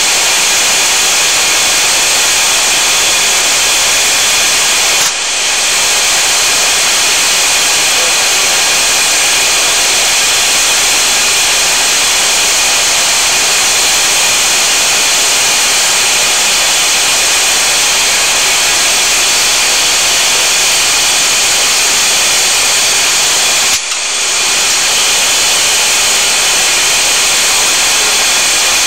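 Aircraft engines heard from inside the cockpit in flight: a loud, steady roar with a faint high whine. The level dips briefly twice, about five seconds in and near twenty-four seconds.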